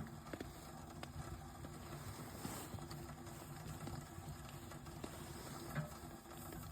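Rain pattering on the tent fabric, a faint, even hiss with scattered irregular light taps.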